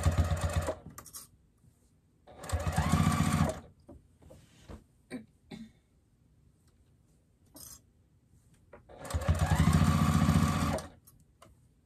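Juki sewing machine stitching in short stop-and-go runs: one at the start, another about three seconds in, and a longer one near the end, each rising in pitch as the motor speeds up. Between runs a few small clicks are heard while the heavy, stuffed fabric is readjusted under the needle.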